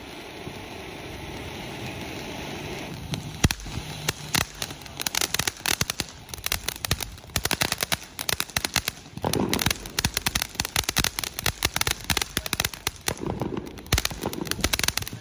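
Black Cat Blue Lagoon fountain firework spraying sparks with a steady hiss. A little over three seconds in there is a sharp crack, followed by dense, rapid crackling pops as the fountain throws out crackling stars.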